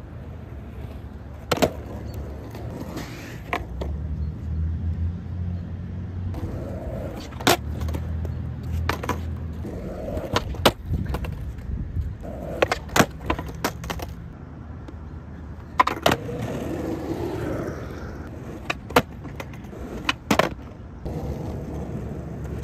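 Skateboard wheels rolling over asphalt and concrete in a low, steady rumble, broken by about a dozen sharp clacks as the board pops and lands on the pavement and curb.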